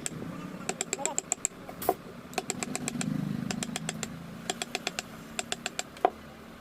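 Quick runs of light, sharp taps, about seven or eight a second, with two single heavier knocks: a mallet striking a carving chisel into wood.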